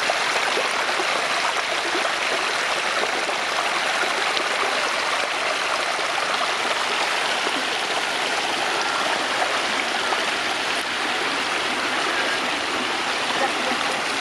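Floodwater running steadily, an unbroken rush of flowing water.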